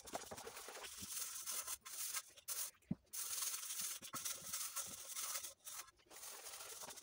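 Scrubbing a metal cooking pot while washing dishes: a scratchy scraping in stretches of a second or so, broken by short pauses, with a few light knocks of the pot.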